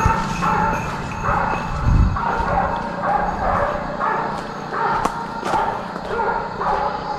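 Hunting dog barking over and over, roughly one bark every half to three-quarters of a second, with a low thump about two seconds in.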